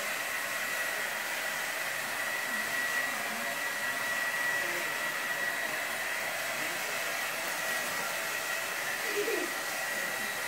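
Steady hiss with a faint, thin high whine held at one pitch, like an appliance or fan running; no distinct dog or paper sounds stand out.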